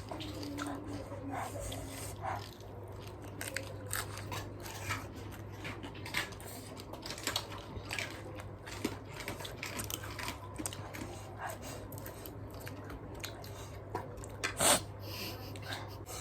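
Close-up chewing and crunching of cabbage, with many short crisp crunches and one sharper, louder crunch near the end, over a steady low hum.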